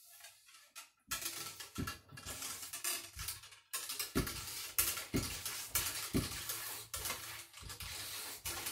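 Cleaning rod with a bore brush pushed up and down inside the wet barrel of a Traditions Kentucky black powder muzzleloader: a steady scrubbing that starts about a second in, with a dull thump about once a second at each stroke.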